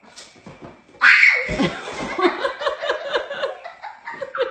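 A person laughing hard in quick, repeated bursts. It starts suddenly and loudly about a second in.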